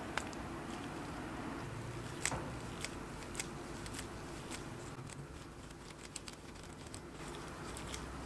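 A plastic twist-up lip balm tube handled in gloved fingers: a few sharp, scattered plastic clicks and taps as the stick is turned and twisted up, over a steady background hiss.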